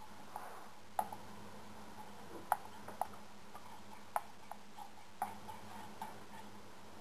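Light, irregularly spaced taps and clicks from lab equipment being handled, about eight over several seconds, each ringing briefly, over a low steady hum.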